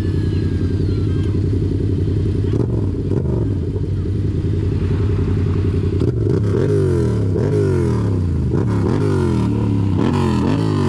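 A motor vehicle engine idling steadily, then from about six seconds in revved in quick repeated blips, each rising sharply and dropping back, roughly one every second or less.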